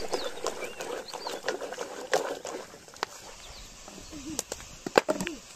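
Animal calls and short high chirps over a dense, busy rustle, with scattered sharp clicks and knocks, the loudest about five seconds in.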